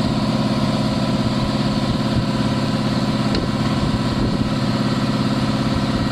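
Volkswagen Sagitar's engine idling steadily at an even pitch.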